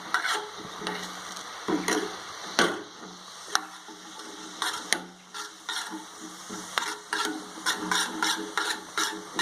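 Spoon stirring carom seeds (ajwain) simmering in water in a pan, with irregular scrapes and clinks against the pan.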